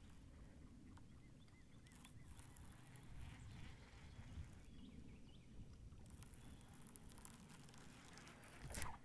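Near silence: a faint low rumble of calm lake water against the hull of a fishing boat, with a few faint ticks.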